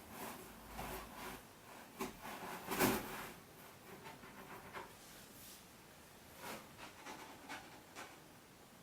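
A kitten scratching and scrabbling on a cardboard box, in irregular short scrapes and knocks, with the loudest scrape about three seconds in.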